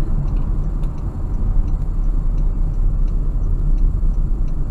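Steady low rumble of a car's engine and tyre noise, heard from inside the cabin while driving along the road.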